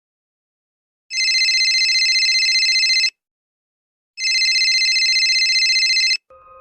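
Telephone ringing: two rings of about two seconds each with a fast trill, a second of silence between them.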